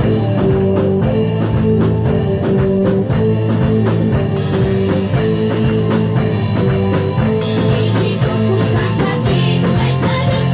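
Background music, rock-style, with a drum kit and guitar keeping a steady beat.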